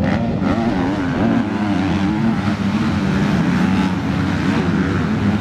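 A pack of motocross dirt bikes running hard together as they come over a rise and down a muddy slope. Several engines overlap, each pitch rising and falling as the riders work the throttle.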